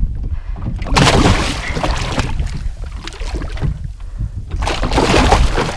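Seawater splashing and sloshing against the side of a small outrigger boat as a hooked dogtooth tuna thrashes alongside the hull, over a steady rumble of wind on the microphone. The splashing comes in two bouts, about a second in and again near the end.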